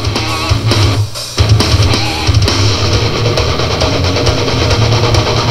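Rock background music with electric guitar and a drum kit, getting louder and fuller about a second and a half in.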